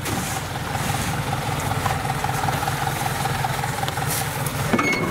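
Modified Kubota DC70 rice combine harvester running at close range: an even, pulsing engine note with a steady higher whine over it, and a brief clank near the end.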